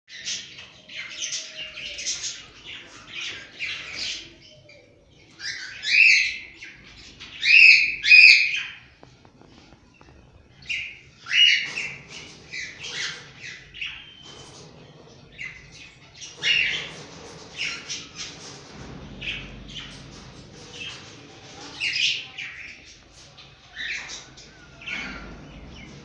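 Cockatiels calling in bursts of short, high-pitched chirps, the loudest calls about six and eight seconds in.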